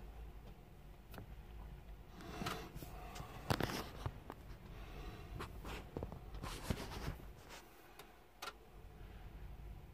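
Faint rustling and a scattered series of light taps and clicks from hands handling things, busiest in the middle, over a low steady hum.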